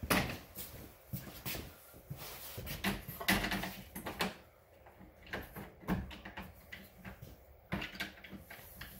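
Irregular clunks, knocks and light rattles as a power-lift windshield is handled and set against a Can-Am Maverick side-by-side's roll cage.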